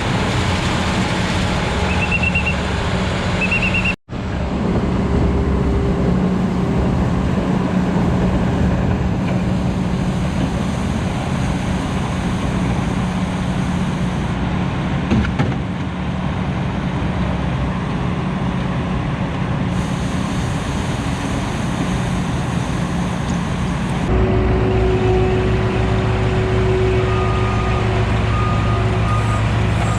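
Heavy asphalt-paving machinery engines running steadily, with a reversing alarm beeping a few times near the start and again near the end. The sound drops out for an instant about four seconds in, and the engine note shifts lower about twenty-four seconds in.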